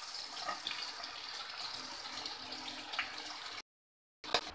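Oil sizzling steadily in a frying pan of stuffed brinjals while a spatula lifts them out, with a few light scrapes of the spatula against the pan, about half a second and three seconds in.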